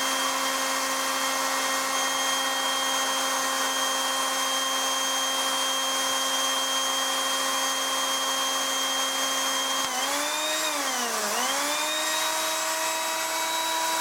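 Electric blender's brushed motor running unloaded with its base open, a steady whine, its carbon brushes sparking on the rotor's commutator. About ten seconds in the pitch dips for about a second, then settles slightly higher.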